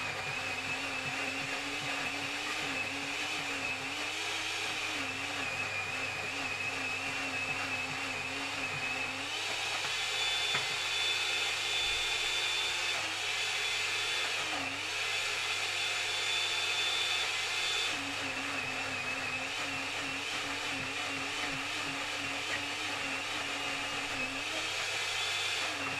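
Morphy Richards Easy Blend Deluxe blender motor running steadily while blending pineapple, its pitch wavering with the changing load. For several seconds in the middle it runs steadier and slightly higher.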